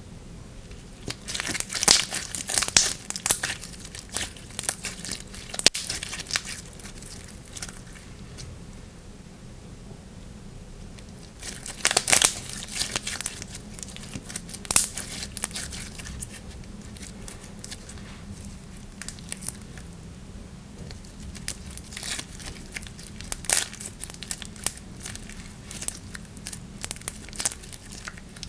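Slime being squeezed and stretched by hand, giving clusters of sharp crackling and popping clicks, busiest about two seconds in and again around twelve seconds in.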